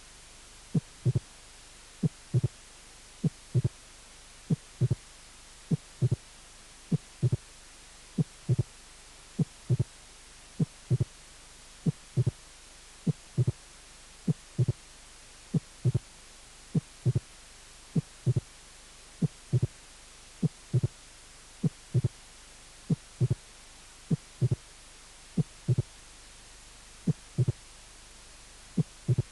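Recorded heart sounds at auscultation: each beat is a first heart sound, then a second heart sound followed 0.10 s later by a late mitral opening snap. The beats repeat steadily about every 1.2 seconds over a faint steady hiss.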